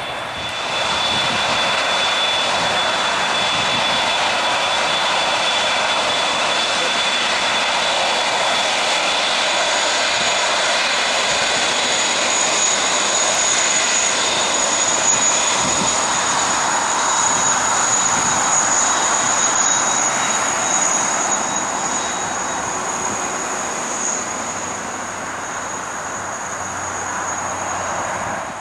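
Emirates Airbus A380's four jet engines running as the airliner moves along the ground: a steady, loud rushing roar with a thin high-pitched whine over it. The sound comes up louder about a second in, and the whine shifts to a higher pitch about ten seconds in.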